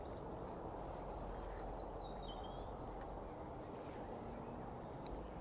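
Quiet outdoor ambient noise, a low steady hum, with faint bird chirps scattered through it.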